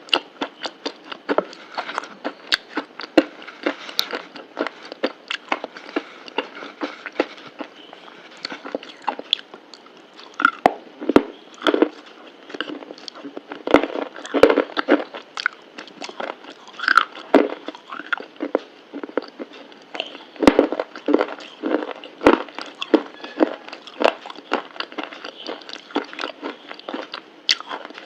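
Close-miked eating: a continuous run of irregular crunchy bites and chewing, many short crackles and clicks a second.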